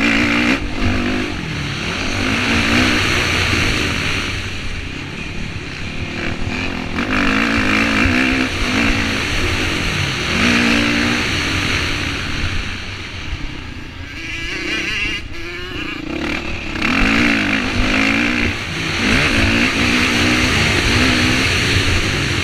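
Dirt bike engine ridden hard, its pitch climbing again and again under acceleration and dropping between gears and corners, with wind rushing over the onboard camera microphone.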